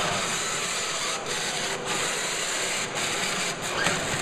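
Two sumo robots shoving against each other: their small drive motors whir steadily and their wheels scrub on the ring surface.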